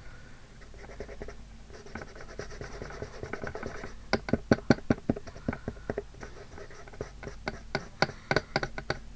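Hand rubbing over the painted surface of a box, a soft scratchy rubbing, followed from about four seconds in by a quick irregular run of light taps and clicks as the box is worked and handled.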